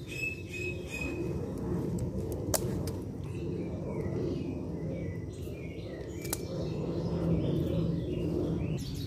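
Pruning shears snip eggplant stems with two sharp clicks, about two and a half seconds in and again near six seconds, over birds chirping and a steady low rumble.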